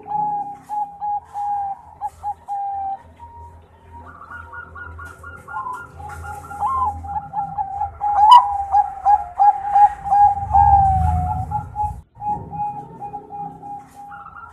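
Bangkok-bred zebra dove (perkutut) cooing in rapid strings of short notes, with a second, higher series of notes over it from about four to eight seconds in. A single sharp click comes about eight seconds in.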